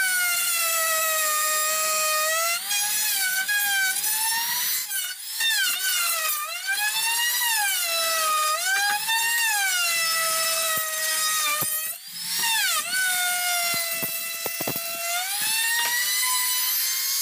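Handheld electric router cutting along the edge of a teak door panel: a loud, high motor whine whose pitch sags as the bit bites into the wood and climbs back as the load eases, again and again. The whine dips briefly twice, around five and twelve seconds in.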